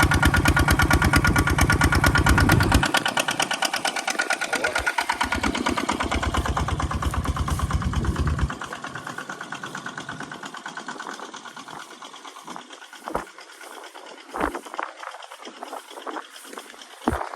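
Engine of an irrigation water pump running with a fast, even firing beat. Its deep part drops out about three seconds in and comes back, then fades about eight seconds in, leaving a lighter rattle with a few sharp knocks.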